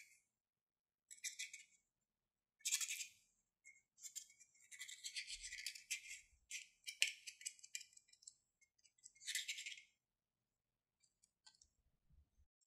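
Small scissors scraping and crunching through pressed brown powder makeup in a plastic compact, breaking it into crumbles: scratchy, crackly bursts, a longer stretch of them in the middle, then a few faint ticks near the end.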